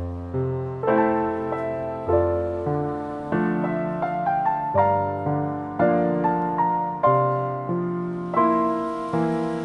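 Background piano music: a gentle melody over chords, each note struck and fading away.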